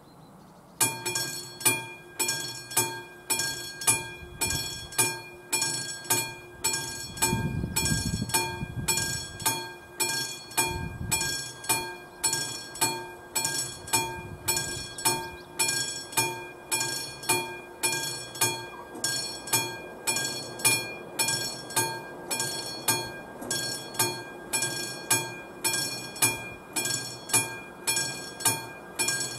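Classic mechanical level-crossing warning bell starting to ring about a second in, then ringing steadily at about one and a half strikes a second, each strike ringing on: the crossing is activated and warning of an approaching train. A low rumble swells briefly around eight seconds in.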